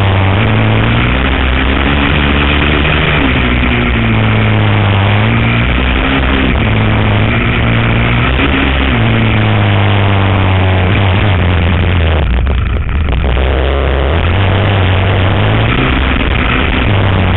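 450 cc single-cylinder four-stroke sport ATV engine ridden hard on a dirt trail. It runs loud, its pitch repeatedly climbing and dropping with throttle and gear changes, with wind rushing over the microphone.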